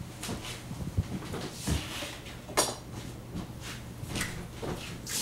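Kitchen handling noises: a few scattered knocks and clinks as a metal sheet pan and utensils are moved about on the counter, with one sharp clank a little past halfway.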